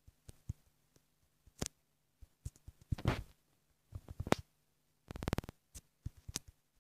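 Fingertip taps on a tablet's glass touchscreen while typing on the on-screen keyboard: irregular soft clicks, with a brief rustle about three seconds in and a quick run of taps about five seconds in.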